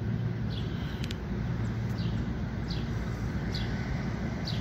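A bird repeating a short, high falling call roughly once a second, over a steady low rumble.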